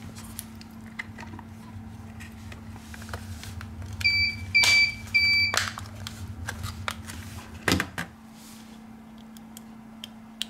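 Three short, high electronic beeps, about half a second apart, among light clicks and taps, over a steady low hum that stops about eight seconds in.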